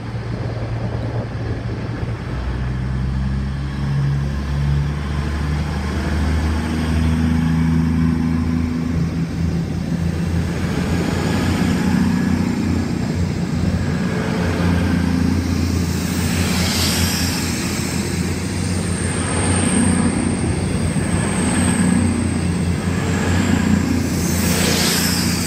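CrossCountry Voyager diesel multiple unit pulling out: its underfloor diesel engines throttle up, the engine note rising over the first few seconds, then a steady drone as the coaches pass.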